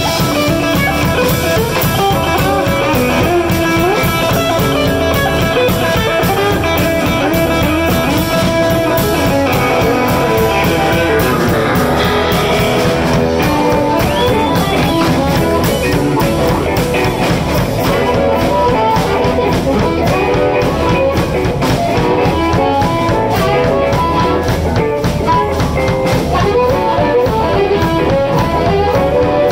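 Live blues band playing an instrumental passage: electric guitar leads over a steady drum-kit beat.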